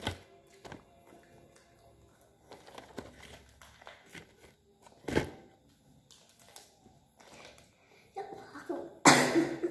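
Plastic snack packaging and a clear plastic food tray being handled: scattered crinkles and clicks, with one sharper snap about five seconds in. A child's voice comes in near the end.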